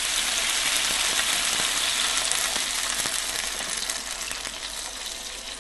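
Water poured into a hot cooking pot of boiling vegetables, hissing and sizzling; the hiss slowly dies away over the last couple of seconds.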